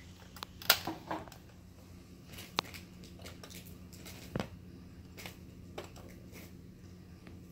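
A baby's hand knocking and clicking at a hard plastic activity toy with a rotary dial: scattered sharp taps and clicks, the loudest about two-thirds of a second in, over a low steady hum.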